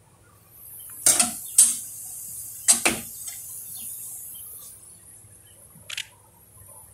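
Metal serving spoon knocking and scraping against a glass baking dish of rice. There are four sharp clinks in the first three seconds over a soft rustle, and one more clink about six seconds in.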